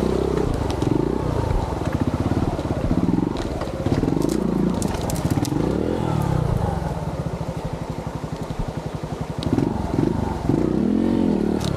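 Yamaha TY-S125F trials motorcycle's single-cylinder four-stroke engine climbing a rough forest road, revs rising and falling with the throttle. It drops to a low, even chug past the middle and revs up again near the end, with scattered clicks of stones under the tyres.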